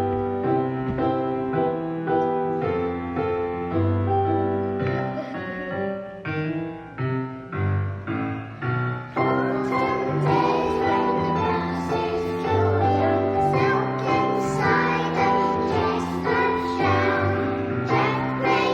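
Piano playing a simple tune. About halfway through, young children's voices join in singing over the piano accompaniment.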